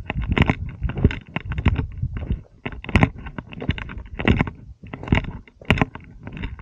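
Footsteps crunching and scraping on loose stones and rock down a steep rocky slope, coming irregularly, several a second.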